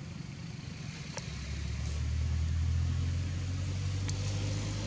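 A motor vehicle's engine running nearby as a low, steady hum that grows louder about a second in and eases off near the end, as a vehicle passing close by would.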